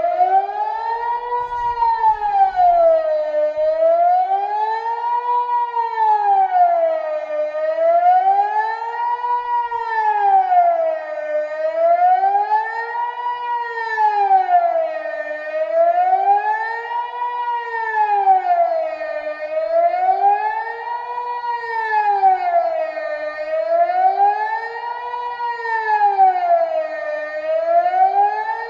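Kockum Sonics Delta 4 electronic civil-defence siren sounding a steady wavering tone that rises and falls about every four seconds: the Swiss general alarm signal being given in the yearly siren test.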